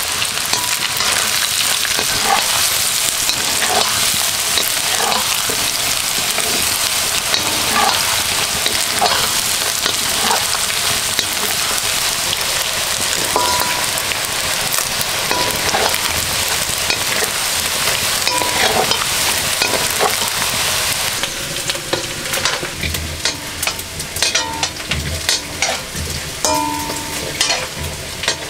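Chicken pieces frying in oil in a black wok, a steady sizzle with the scrape and knock of a spatula stirring against the pan. About three-quarters of the way through the sizzle drops, leaving mostly separate knocks and scrapes.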